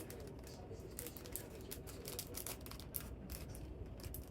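Scattered light clicks and faint rustling of small merch items and their packaging being handled.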